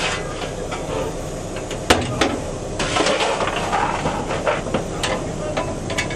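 Metal clanks and knocks in the cab of a Henschel D h2t steam tank locomotive as the firebox door latch and lever are worked and the door is swung open, over a steady hiss of steam. The sharpest clank comes about two seconds in, with more knocks near the end.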